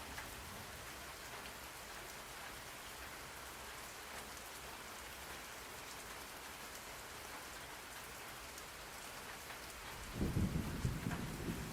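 Steady rain falling on a surface, an even hiss, with a loud low rumble of thunder rolling in near the end.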